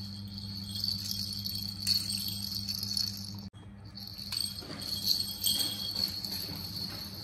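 Plastic bell-ball rattle toy jingling in short bursts as it is shaken and handled, over a steady high-pitched ringing tone. The sound cuts out for an instant about halfway through.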